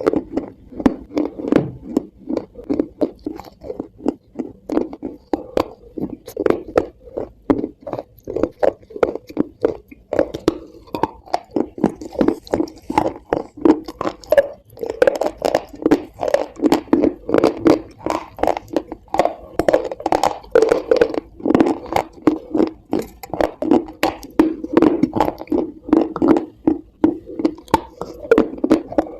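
Close-miked chewing of something dry and crunchy: a continuous run of loud, sharp crunches, several a second.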